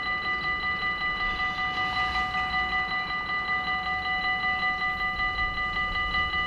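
Dutch level-crossing warning bells ringing in rapid, even strokes, about four a second: the crossing is active with its barriers lowered.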